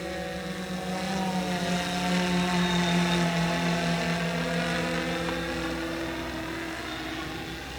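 Multirotor Splash drone flying, its propellers buzzing with a steady whine of several pitches that swells to its loudest about three seconds in and then slowly fades.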